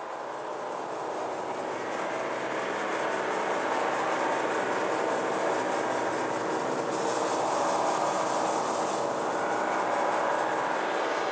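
Hubbub of a roomful of people talking at once, a steady mass of overlapping voices with no single voice standing out.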